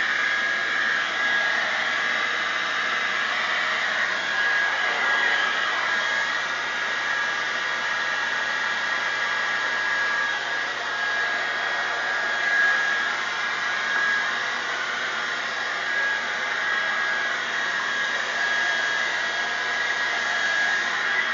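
Handheld hair dryer blowing steadily, a constant rush of air with a high whine from its motor.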